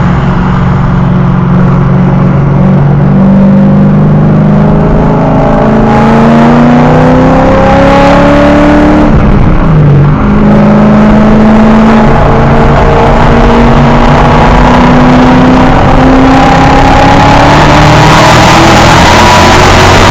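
Supercharged V8 Audi S5 with a Fast Intention aftermarket exhaust accelerating under light throttle: the engine note climbs steadily in pitch, drops back sharply about ten seconds in as at an upshift, then climbs again.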